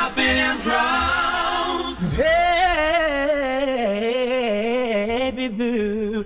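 Slowed-down, pitched-down a cappella male R&B vocals with no backing track: a short sung passage, then from about two seconds in one long held note with a wavering pitch.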